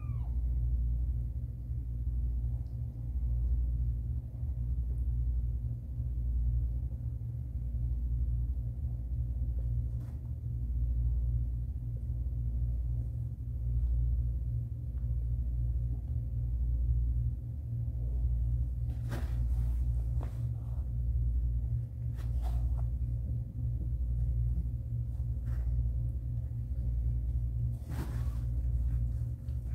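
Mother cat in labour purring: a deep, steady rumble that swells and dips in waves with her breathing. A meow cuts off at the very start, and there are brief rustles as she shifts in the bedding near the end.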